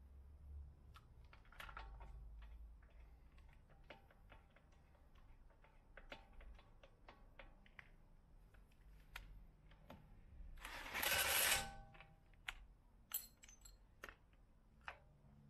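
Scattered small metallic clicks and knocks of tools and brake parts being handled during caliper reassembly, with one louder burst of rasping noise lasting about a second, about eleven seconds in.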